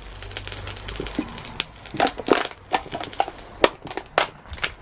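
A piece of aluminium scrap being squashed to fit a crucible: irregular crinkling and cracking with several sharp metallic knocks.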